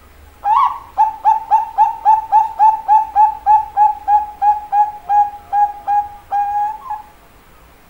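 Zebra dove (perkutut, Bangkok type) singing its cooing song. It opens with one note, runs into a fast series of short coos at about three and a half a second, and ends on a longer drawn-out coo.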